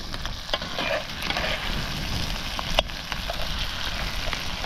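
Thick curry sauce in a cast iron pan over a fire being stirred and scraped with a metal utensil. Wet stirring and soft bubbling, with scattered clicks of metal against the pan, the sharpest about three seconds in.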